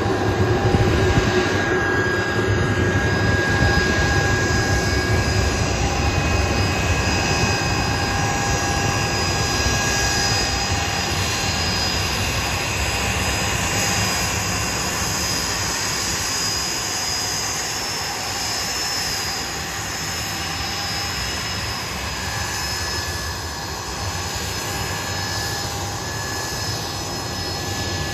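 Blackburn Buccaneer's twin Rolls-Royce Spey turbofan engines running as the jet taxis along the runway: a steady jet rumble with high whining tones over it, a little quieter past the middle and building again near the end.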